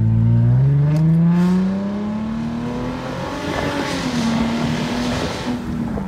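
2010 Ford Mustang's 4.0 L V6 with the muffler deleted and straight pipes fitted, accelerating under light throttle, heard from inside the cabin. The exhaust note climbs steadily for about three seconds, then dips and levels off.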